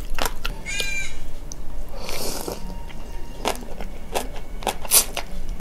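Close-up eating sounds: a mouthful of soybean sprouts from a bowl of soup being slurped and chewed, with a rushing slurp about two seconds in and several sharp clicks throughout. A short high squeak is heard about a second in.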